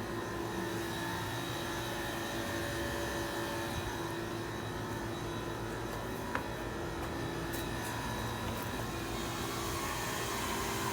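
2000 Payne Teardrop heat pump outdoor unit running with a steady hum and several held tones. It sounds terrible, which the owner takes as a sign the unit will fail soon. A faint click comes about six seconds in.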